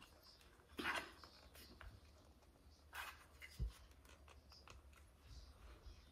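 Faint handling noise of small plastic parts of a smartphone vlogging grip being fitted together: a few soft rustles and clicks about a second in and around three seconds in, and a brief low thump a little after that.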